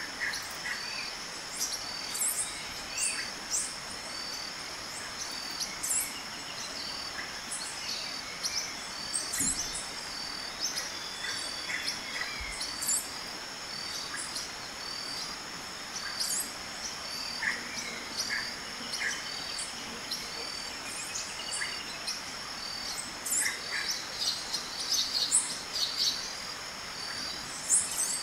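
Birds chirping with many short, quick calls, over a steady fast-pulsing insect trill, like a cricket: a natural woodland ambience.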